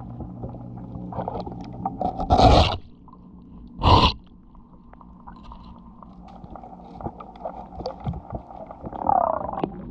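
Scraping and rubbing against a fouled boat hull, heard underwater through the camera housing, with a low steady hum in the first few seconds. Two short loud rushing bursts come about two and a half seconds in and about four seconds in.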